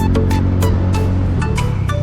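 Background music with a steady beat, short melodic notes and a deep bass line.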